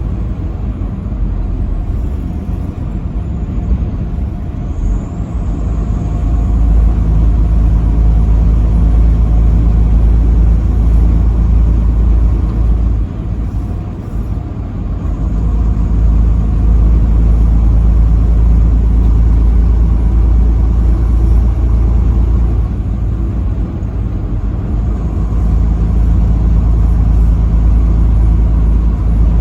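Steady low rumble of a vehicle cruising on an interstate highway: engine and tyre-on-road noise. It eases off briefly about halfway through.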